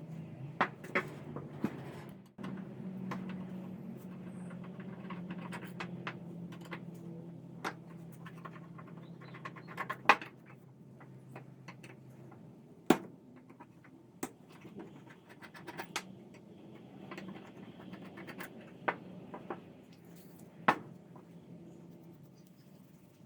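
Scattered sharp clicks, taps and scraping of small hard parts being handled, over a low steady hum that stops about halfway through.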